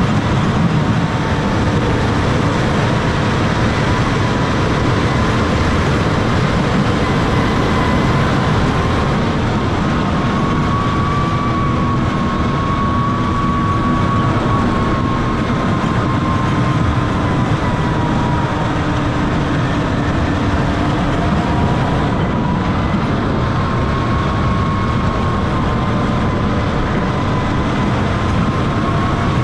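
John Deere 6155R tractor's six-cylinder diesel running steadily under load while it pushes snow with a front-mounted plow. A high whine rides over the engine noise, drifting slowly up and down in pitch.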